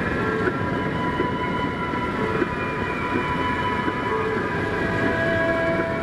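Steady road and engine rumble inside a moving car's cabin, with music playing, its long held notes changing every few seconds.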